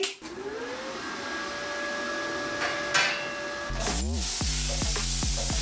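Plasma cutter with a built-in 750-watt twin-piston air compressor being switched on: the compressor spins up with a rising whine and runs steadily, there is a click about three seconds in, and then the plasma arc strikes and cuts sheet steel with a loud hissing and crackling.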